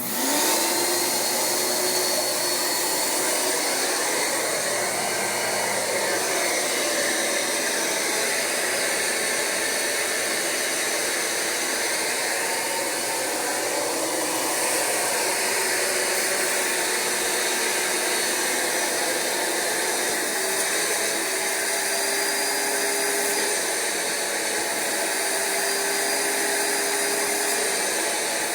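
Rug Doctor carpet cleaner switching on and running steadily, its vacuum motor drawing suction through the upholstery hand tool. A faint hum in it shifts pitch a little now and then in the second half.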